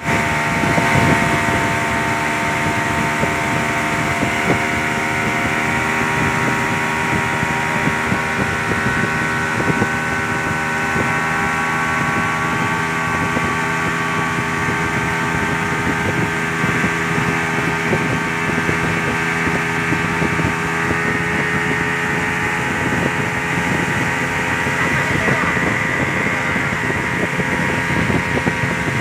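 Speedboat engine running at high speed with a steady pitch, heard from aboard, over the rush of water and wind.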